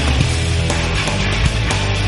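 Loud, dense rock music with a heavy bass line, running without a break.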